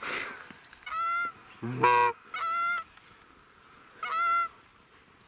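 Geese honking: a series of short, single honks about every one and a half seconds, with one lower, harsher honk about two seconds in.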